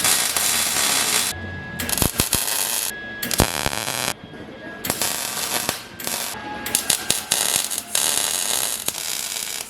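Electric arc welding in repeated bursts of about a second each, a harsh crackle broken by short pauses.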